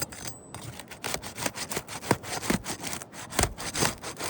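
Asphalt roof shingles being pried up to break their seal strip: irregular crackling, snapping and scraping as the sealed tabs tear loose and granules come off.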